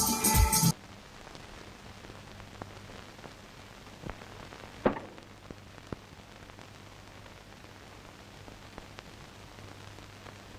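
A song cuts off abruptly in the first second. What follows is a faint, steady hum and hiss with scattered soft clicks, the sharpest one about five seconds in.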